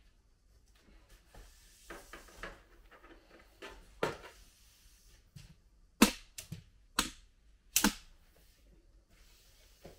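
Tent fabric rustling as a crossover pole is fed through the sleeve on top of the tent, with about five sharp clacks from the pole in the second half, the loudest about six seconds in.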